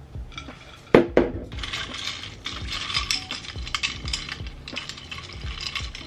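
Two sharp knocks about a second in, then ice cubes rattling and clinking against a glass as a straw stirs iced coffee.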